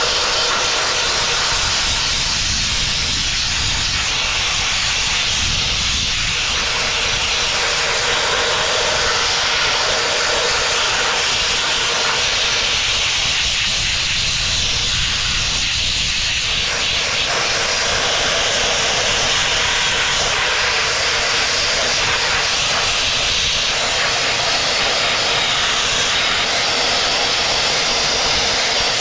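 Sandblasting nozzle hissing steadily as a jet of compressed air and abrasive strips rust and paint from a lorry's wheel.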